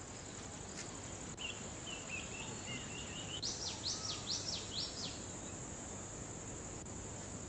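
Steady high insect drone with a bird calling over it. The bird gives a chattering run of chirps, then about six quick downward-sweeping whistled notes, ending around five seconds in.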